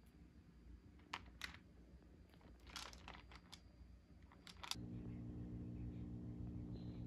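Faint handling noises: a few short crinkles and clicks, then a steady low hum begins about two-thirds of the way in.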